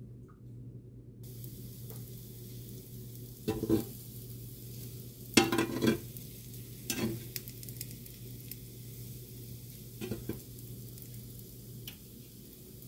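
Food sizzling in a frying pan on a stove that is still coming up to heat, a steady hiss that starts about a second in. Several short clatters of a utensil against the pan or bowl, the loudest about five and a half seconds in, over a constant low hum.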